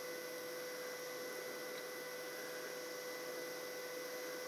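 TIG welding arc burning steadily on DC: an even hiss with a constant steady hum.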